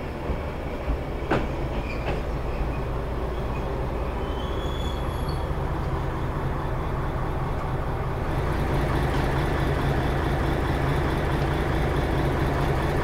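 Kishū Railway diesel railcar idling at the platform, a steady low engine hum that grows louder about eight seconds in. A few light taps sound in the first two seconds.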